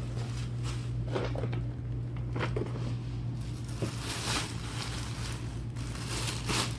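A packaging bag rustling and crinkling in short, uneven bursts as costume pieces are handled and packed into it, over a steady low hum.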